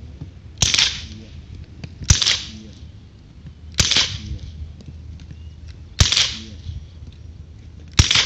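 Five single gunshots, fired one at a time about every one and a half to two seconds, each loud crack followed by a brief ringing tail.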